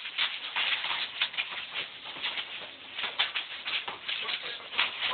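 An irregular patter of taps and scuffs from players running on an outdoor asphalt basketball court during play.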